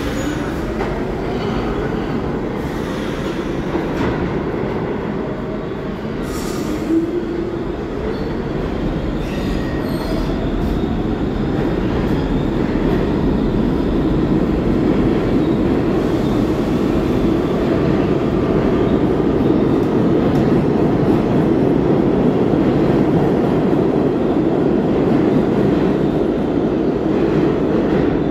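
R46 subway train pulling out of a station: the motor whine rises as it speeds up, with wheel squeal and a dense rumble in the tunnel. The rumble goes on and grows louder in the second half.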